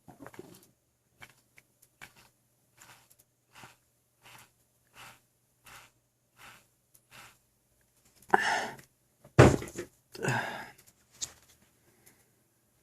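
Belly sounds from an overfull stomach, picked up by a phone resting on the belly: a run of faint, short sounds evenly spaced about every 0.7 seconds, then three much louder noisy sounds of about half a second each, a second apart, starting about eight seconds in.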